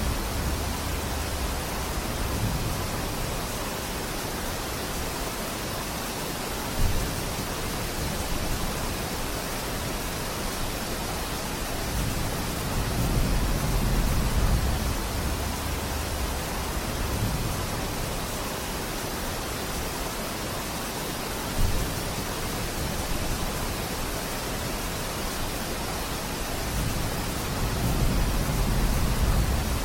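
Steady rain falling in a forest, an even hiss. Slow low rumbles swell up twice, in the middle and near the end, and two sharp single ticks stand out, about a quarter of the way in and about two-thirds of the way through.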